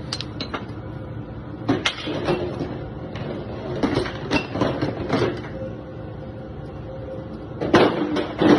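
Irregular metal clanks and knocks as heavy metal parts are handled and set down, with a denser cluster of clatter near the end.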